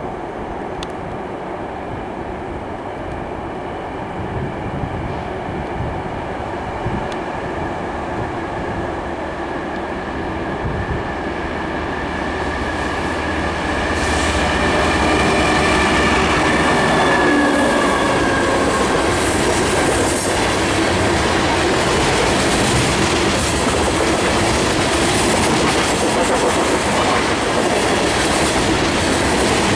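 Canadian National freight train's diesel locomotives approaching and passing, their engine drone growing louder until about halfway through. Then a string of loaded tank cars rolls by steadily, wheels clicking over the rail joints.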